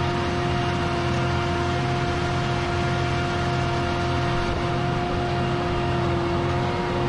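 John Deere 8270R tractor's six-cylinder diesel running steadily under load while drilling, a constant engine hum with a steady whine over it.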